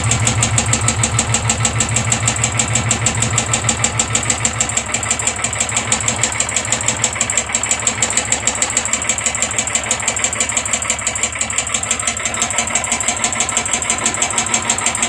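Royal Enfield Classic 350's single-cylinder engine idling steadily with a fast, even tik-tik-tik ticking from the top end. The mechanic suspects the decompressor is making the noise, rather than the hydraulic tappets or the timing.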